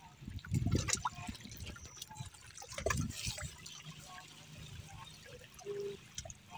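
Small sea waves lapping onto the shore, with two surges about half a second and three seconds in, and trickling and dripping water in between.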